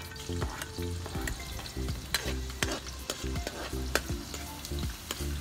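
A metal spatula scraping and stirring in a stainless steel wok as minced garlic fries in oil, with a light sizzle. Several sharp clacks of the spatula against the pan, the loudest about four seconds in.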